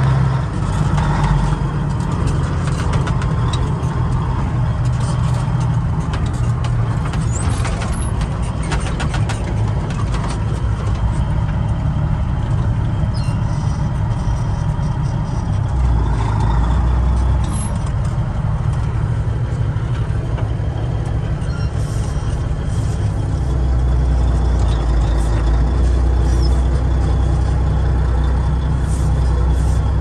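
A 1986 Ford LTL 9000's Caterpillar diesel engine running under way, heard from inside the cab as a steady low drone. Its note drops lower about halfway through and again a few seconds later, with a few light knocks and rattles early in the run.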